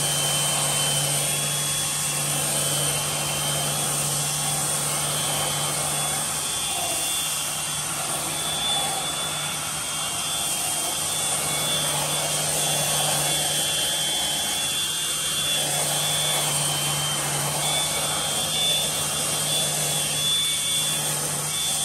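Cordless Flex rotary polisher running steadily, spinning a 5-inch rotary brush that scrubs a leather car seat sprayed with cleaner. A constant motor hum with hiss over it.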